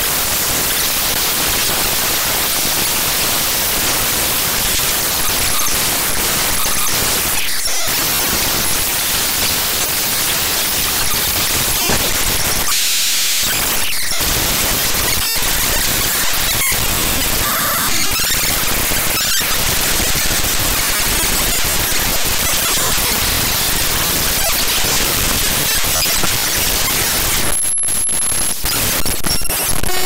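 Raw binary data of the SpeedFan program played as unsigned 8-bit audio: loud, harsh, unbroken static. The texture shifts briefly a few times, and a thin high whistle sounds about two seconds before the end.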